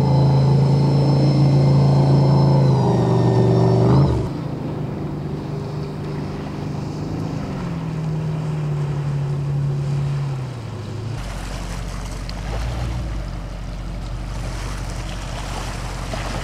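Amphibious Jeep-style cars running across the water under engine power, the engine note steady with water rushing past the hull. About four seconds in the engine note shifts sharply lower. Later it gives way to mostly water and rumbling noise.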